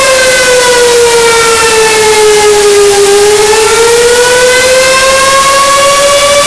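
Brown chicken scream sound effect, distorted and loud: one long held screaming note that sinks slowly for about three seconds and then climbs back, over a harsh hiss, sounding like a siren.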